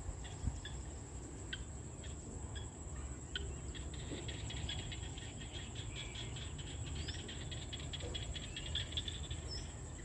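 A chorus of small rice-paddy frogs (khiat) calling, many overlapping quick clicking chirps in dense trains.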